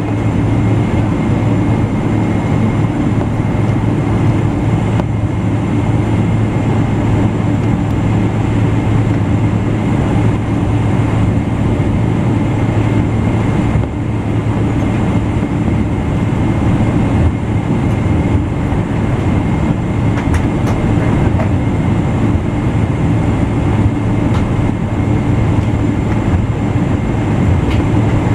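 Cabin noise inside a Boeing 777-200LR while it taxis: the GE90 engines at low taxi power give a steady low rumble, with a faint, high, steady whine above it.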